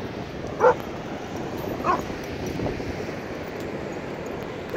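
Dogs at play barking: two short yipping barks about a second apart and a fainter one soon after, over a steady rush of surf and wind.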